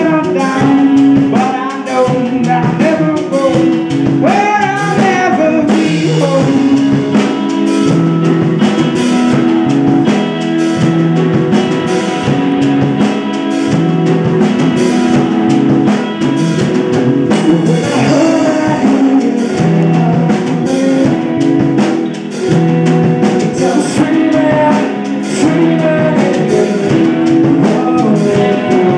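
A live rock band plays a song: drum kit, electric guitars, acoustic guitar and bass guitar together, with a male lead vocal singing over them.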